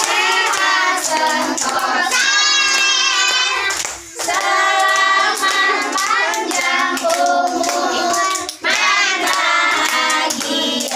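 A group of children and women singing a birthday song together while clapping along, the singing in phrases with short breaks about four seconds and eight and a half seconds in.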